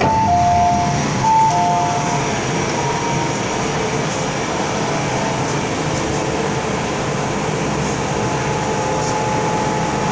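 MTR M-Train door chime, a two-note chime played twice as the doors open at a station, over the steady running hum of the stopped train.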